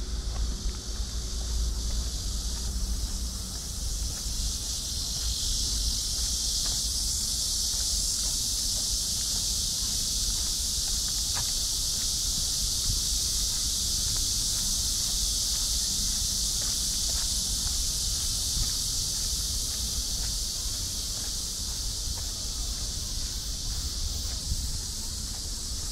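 A steady, high-pitched insect chorus that swells a few seconds in and then holds, over a low steady rumble.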